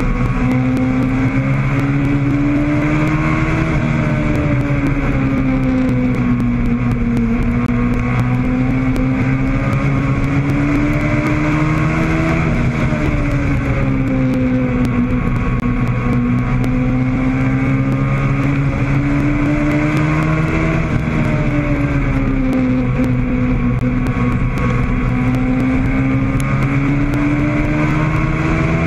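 Legends race car's motorcycle-derived four-cylinder engine at racing speed, heard on board, its pitch climbing along each straightaway and dropping off into each turn about every eight or nine seconds, with wind rushing past.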